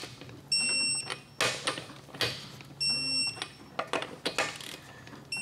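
Electronic torque wrench beeping as each lug nut reaches its set torque of 100 foot-pounds: two short high beeps a little over two seconds apart, with clicks and knocks of the socket going onto the nuts in between.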